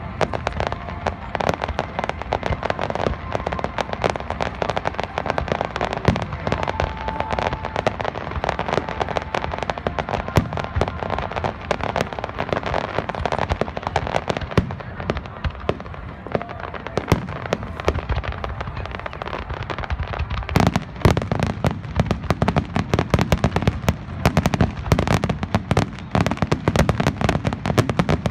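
Fireworks display: a dense, continuous run of bangs and crackling from bursting shells, growing thicker and louder about twenty seconds in.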